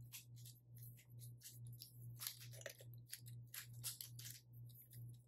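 Faint, irregular small clicks and clacks of an infinity cube fidget toy being folded over and over in the hands, over a steady low hum.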